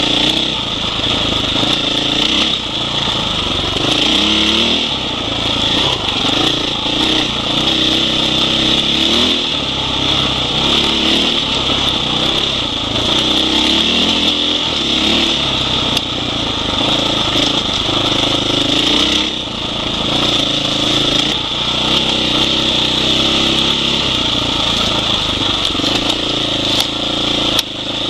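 Husqvarna 501 Enduro's single-cylinder four-stroke engine under way on a trail ride, its pitch rising and falling again and again as the throttle is worked and gears change. A steady high hiss sits over the engine.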